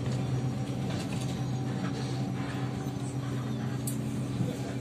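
Inside a moving Kyiv-12.03 trolleybus: the steady hum of its electric traction drive over road and cabin noise, with a faint whine that fades out about three seconds in.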